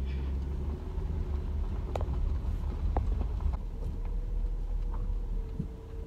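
Car rolling slowly, heard from inside the cabin: a steady low rumble of engine and tyres with a faint steady hum, and a few sharp ticks about two and three seconds in.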